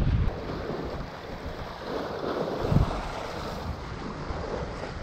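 Wind blowing across the microphone over a steady wash of sea water, with a short low gust about three seconds in.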